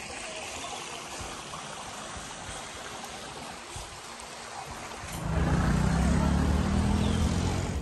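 Steady rush of splashing water from pool fountains and basins. About five seconds in, a louder low rumble takes over.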